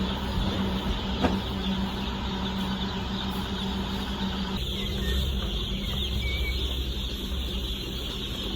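Steady mechanical running noise with a constant hum, like an idling engine or large fans. About halfway through, the hum drops out and a deeper rumble takes over.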